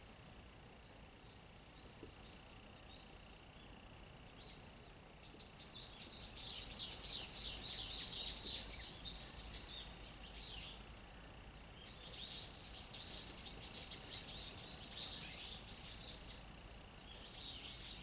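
A songbird singing two long runs of rapid high chirps, each about six seconds, starting about five seconds in, with a shorter run near the end, over a faint steady high-pitched hum.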